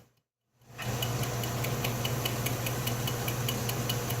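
Metal lathe running a light milling pass: a steady motor hum with fast, regular ticking. The sound cuts out for the first part of a second, then comes back in.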